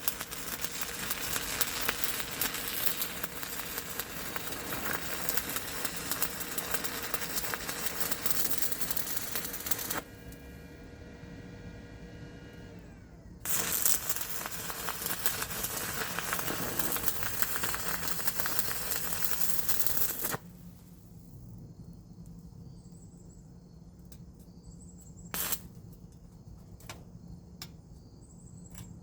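Welding arc from a Sefaspe 205DS multiprocess welder running on 110 V, crackling in two long runs of about ten and seven seconds with a short pause between. After the second run there is a steady low hum and a few sharp clicks.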